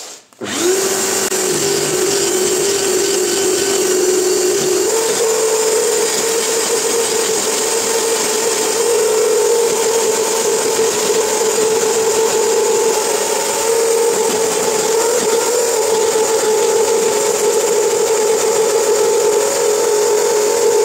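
Parkside PDM 600 C3 wood lathe running, its motor giving a steady whine, while a gouge cuts into the spinning wood blank with a continuous rough scraping hiss as it is shaped round. The sound starts abruptly about half a second in and holds steady, the motor's pitch stepping up slightly about five seconds in.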